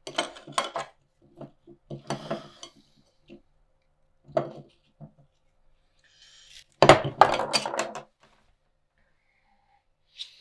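Metal clinks and clatter of a kitchen knife and other cutlery being handled, in several short bursts, the loudest and longest about seven seconds in.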